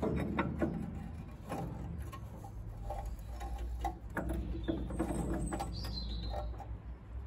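Spark plug being tightened into a Villiers petrol engine with a plug spanner: scattered metal clicks and scrapes, with a short squeak about five seconds in. A sleeve rubs close to the microphone.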